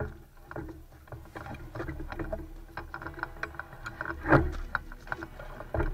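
Close handling noise from a rifle-mounted scope camera: leaves and twigs rustle and crackle against the rifle and the player's gear as he moves through dense brush, in irregular small clicks. One louder knock comes about four seconds in.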